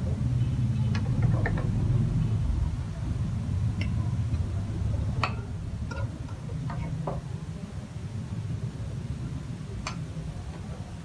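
A metal ladle clinks and scrapes against a steel wok and a china plate as stir-fried food is served out: several separate sharp clinks, some ringing briefly. A steady low rumble runs underneath.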